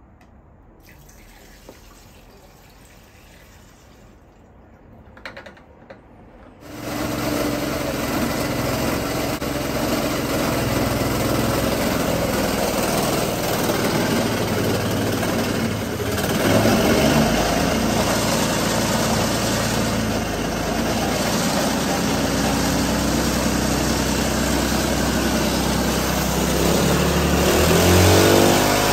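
Single-cylinder petrol go-kart engine converted to hydrogen, running on hydrogen with methanol injected in place of its cooling water. After a few faint clicks it comes in suddenly about seven seconds in and runs steadily. It gets louder a little past the middle and revs up near the end.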